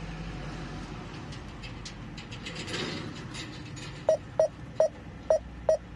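Garmin GPS navigator beeping five times in quick succession, one short, clear beep of the same pitch for each press on its touchscreen, about half a second apart near the end. Under them is a low steady hum in the truck cab.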